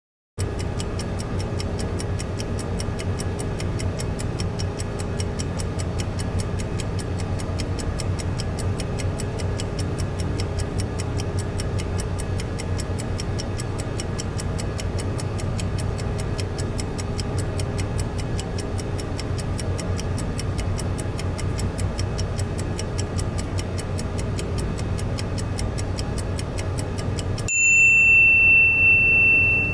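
Oven running with a steady low hum while a kitchen timer ticks rapidly and evenly. Near the end the timer goes off with a loud, single high-pitched ring held for about two seconds.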